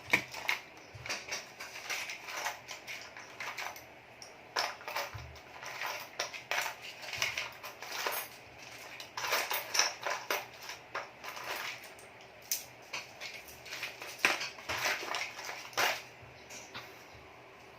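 Small hard parts clicking and clattering irregularly as spare phone charging ports are rummaged through and handled.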